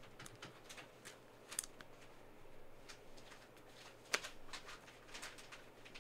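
Faint handling of trading cards and clear plastic card sleeves: light scattered clicks, rustles and taps as cards are picked up and set down on the table mat, with one sharper tap about four seconds in.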